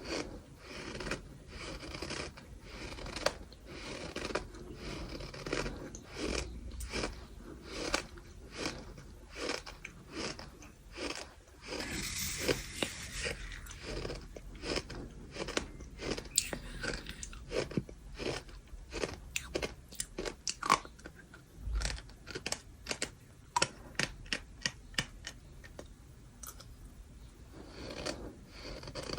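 Bird sand being chewed close to the microphone: gritty crunching and crackling bites. There is a dense gritty crackle about twelve seconds in, and sharper single crunches through the second half.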